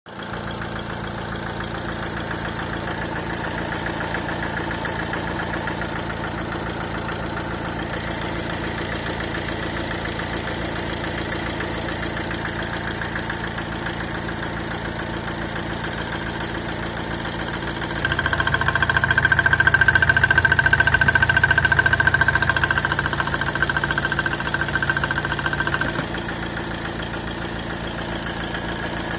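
Renault Scenic 1.6 dCi four-cylinder diesel engine idling with a rhythmic ticking clatter, which the owner puts down to a ticking fuel injector. The engine grows louder for several seconds past the middle, then drops back abruptly.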